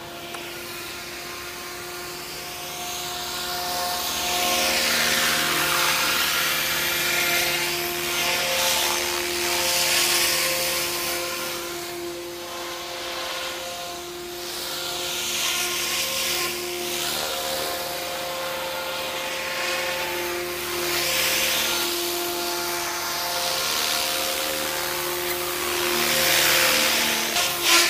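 Eachine Novice-I 75 FPV whoop's small brushless motors and ducted propellers whining in flight. The pitch stays steady under a whoosh that sweeps down and up again every few seconds as the drone passes near and moves away.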